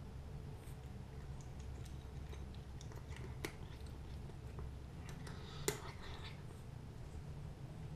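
A cat crunching dry kibble: scattered crisp crunches and clicks, with a louder run of them a little past halfway.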